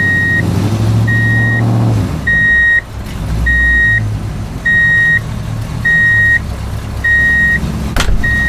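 A truck's reversing alarm beeping at a steady pace, about one beep a second, over a low engine rumble; a sharp click near the end.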